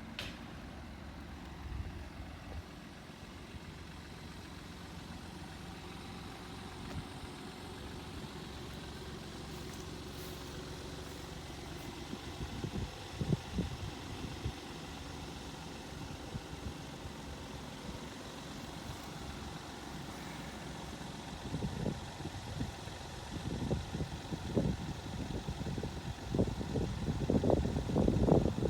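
Diesel train approaching, a low rumble that grows louder, with a quickening run of low thumps over the last several seconds.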